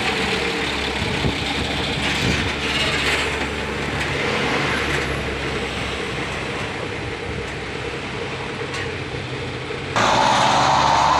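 Heavy container truck's diesel engine running under load close by as it pulls up a steep climb, a continuous rumble. About ten seconds in, the sound cuts abruptly to a louder, steadier engine note.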